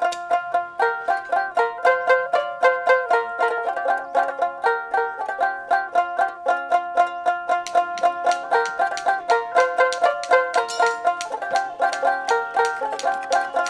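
Background music: a plucked string instrument picking a quick, repeating melody of evenly spaced notes.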